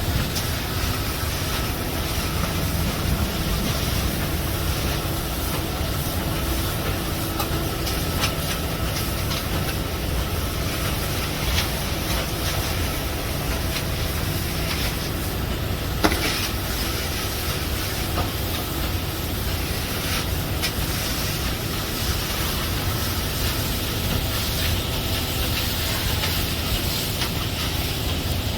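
Concrete-pouring machinery running steadily with a low rumble and hiss, with scattered clicks and one sharp knock about sixteen seconds in.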